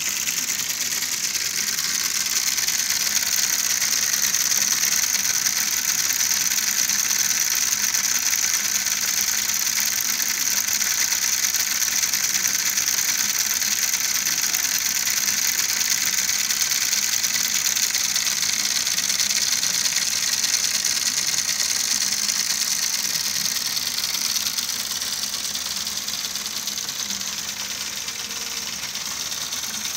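Small electric motor of a homemade model combine harvester running steadily with a high whir, easing slightly near the end.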